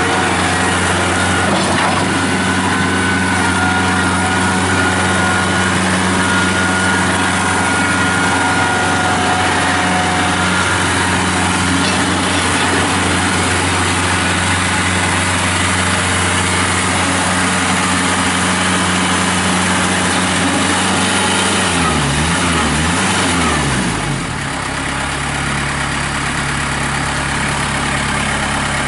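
Kubota B2910 compact tractor's three-cylinder diesel engine running steadily. A little over 20 seconds in, the engine speed wavers and drops, then settles into a lower, slightly quieter run.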